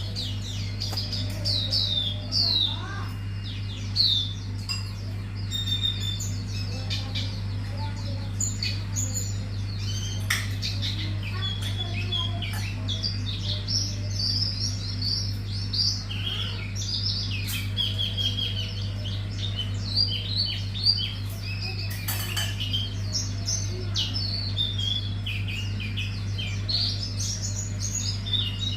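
Hume's white-eye (pleci auriventer) singing continuously: a long, fast run of varied high chirps, twitters and trills made up of its learned song material, over a steady low hum.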